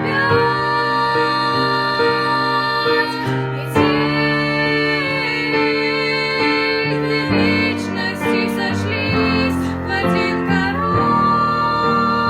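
Female voice singing a slow, tender song in long held notes over piano accompaniment.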